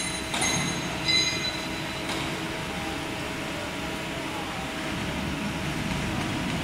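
Horizontal metal band saw running with a steady mechanical drone and a faint held whine. Two short ringing metallic clinks come about half a second and a second in.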